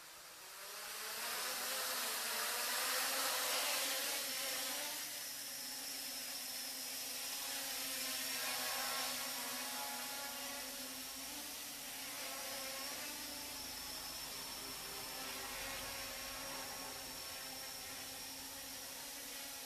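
Quadcopter's four electric motors and propellers buzzing. The sound rises over the first two seconds as the motors spool up for lift-off, then settles into a steady hovering drone whose pitch wavers slightly.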